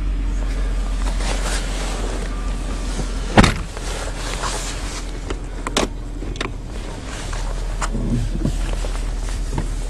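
Chrysler Sebring's engine running at low revs, heard from inside the cabin as the car moves slowly, with a steady low hum. A single sharp knock comes about a third of the way in, and a few lighter clicks follow.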